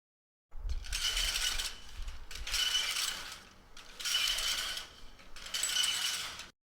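Rusty metal swing creaking as it sways back and forth: four rhythmic squeaky creaks, each about a second long and about a second and a half apart, with a low rumble under the first two.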